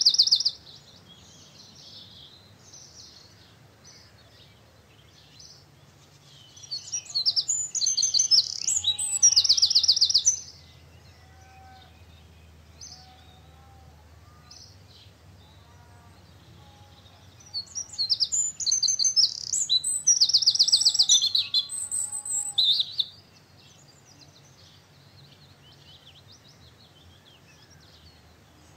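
Songbirds singing: two loud stretches of rapid, high trilled song, one starting about seven seconds in and another about eighteen seconds in, with fainter chirps and a few lower whistled notes between.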